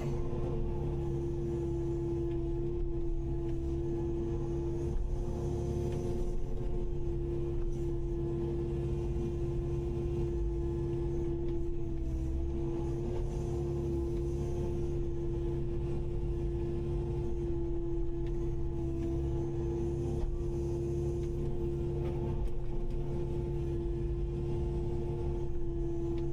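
Kubota KX080-5 excavator's diesel engine and hydraulics running steadily: a constant hum over a low rumble, with a slight dip in pitch about halfway through.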